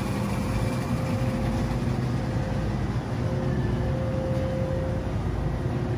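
Steady low mechanical hum of a warehouse store's open refrigerated display cases and air handling, with a faint steady tone or two running over it.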